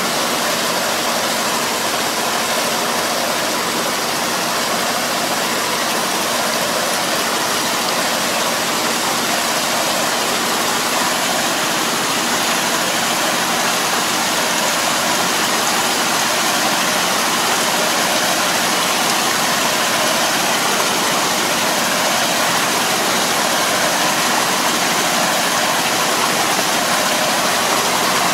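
Tractor engine running steadily under load while its rear drive harrow churns through a flooded rice paddy, puddling the mud. The rotor's splashing of muddy water makes a constant rushing hiss over the engine.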